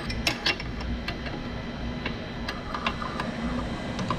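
Scattered light clicks and taps of metal parts and hand tools as the old clutch cable is worked free of the clutch arm on a small motorcycle engine, over a steady low hum.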